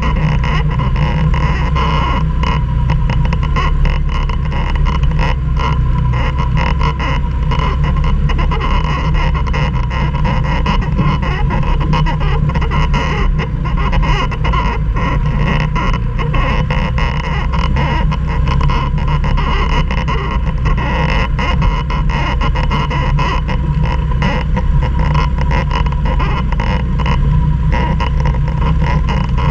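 Quad (ATV) engine running steadily under load, with frequent short knocks and rattles throughout.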